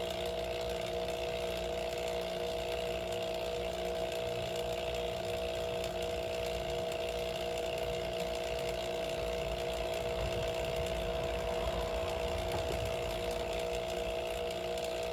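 HVAC vacuum pump running steadily with a constant hum, pulling the final vacuum of a triple evacuation on a mini-split line set. The vacuum is coming down slowly as it nears the 350-micron target.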